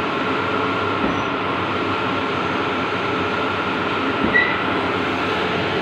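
Bluewin large-format outdoor banner printer running, a steady mechanical whir and rumble with a faint squeak about four seconds in.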